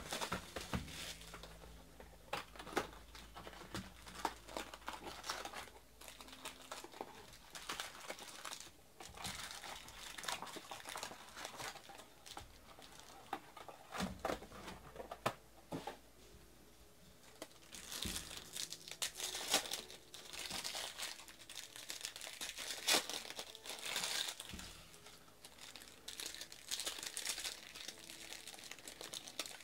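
Plastic shrink wrap and foil baseball card packs crinkling and tearing as they are opened by hand, in irregular bursts of crackle that grow busier in the second half.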